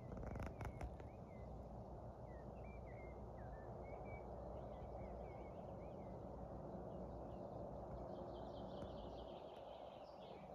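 Small birds chirping and singing at dawn in short, high, curving notes, with a quicker run of notes near the end, over a quiet steady low outdoor background. A few sharp clicks come about half a second in.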